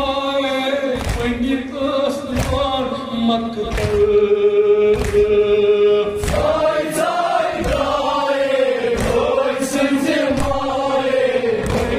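Group of men chanting a Kashmiri noha (mourning lament), a lead voice with others joining in chorus, with one long held note about four seconds in. Rhythmic matam chest-beating thumps keep time, about one every three-quarters of a second.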